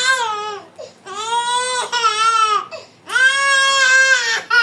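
A young child crying in long, high-pitched wails, one after another with short breaks for breath.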